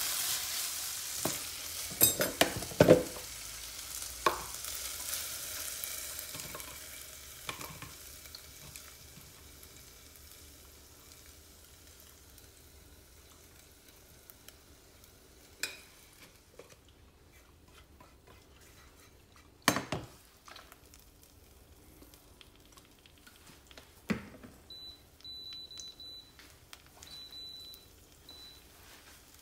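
Chicken pieces sizzling in a non-stick frying pan while stirred and scraped with a spatula, the sizzle dying away over the first several seconds, with sharp knocks of the spatula and pan. Near the end comes a run of short high beeps from the induction hob's touch controls.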